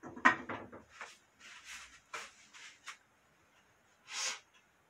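Handling noises: a quick clatter of knocks in the first second, then scattered rustling and brushing sounds, and a short hiss near the end.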